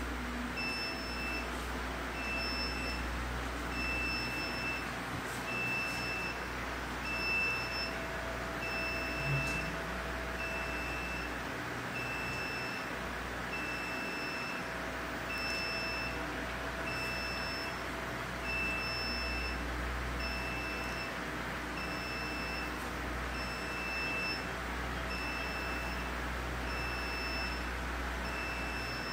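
Short high-pitched electronic beep from neonatal intensive-care equipment repeating about once a second, an alarm-style beep, over a steady hum and hiss of room equipment.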